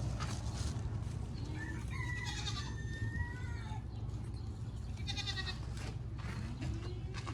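Goats bleating, two wavering calls about three seconds apart, over a steady low rumble.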